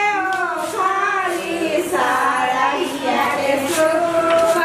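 A high voice singing a melody in long, sustained notes that bend and waver in pitch, with faint music behind it.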